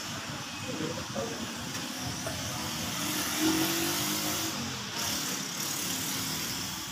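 A motor vehicle's engine running, loudest about halfway through, over a steady background hiss.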